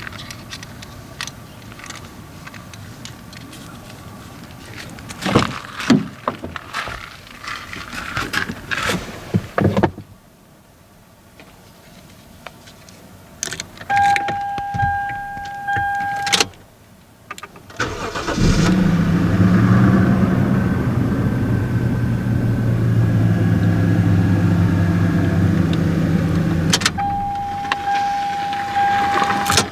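Toyota Crown (S170) car engine starting and then idling steadily, with a low, even running note. Before it come scattered clicks and knocks and a short quiet spell. A steady electronic warning tone sounds for a couple of seconds before the start and again near the end.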